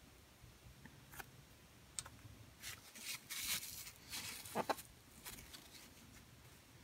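Faint ticks of a dry-erase marker on a whiteboard, then a crumpled tissue rubbing across the board in several quick scratchy strokes, erasing the writing, with a short squeak near the end of the rubbing.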